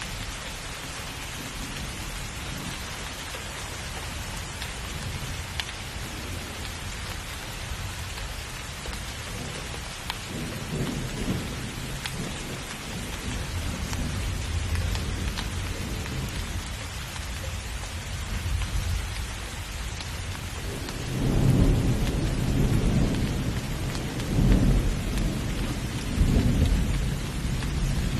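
Steady rainstorm: rain falling hard, with thunder rumbling low about a third of the way in, then louder rolling thunder with several peaks through the last quarter.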